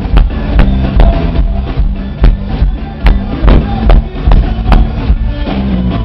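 Live forró band music played loud through a PA, with a driving drum beat under sustained instrumental notes.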